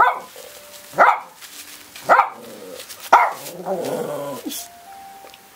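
Dog barking, four short sharp barks about a second apart, followed by a longer whining grumble a little after three seconds in.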